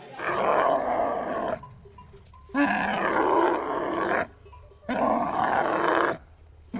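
An animal roar, three times, each call about a second and a half long with short pauses between.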